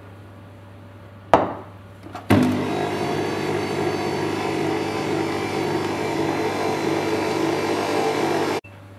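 Bosch stand mixer running steadily for about six seconds, its beaters working flour into a butter, egg-yolk and grated-cheese dough; the motor starts about two seconds in and cuts off abruptly just before the end. A single sharp knock comes shortly before it starts.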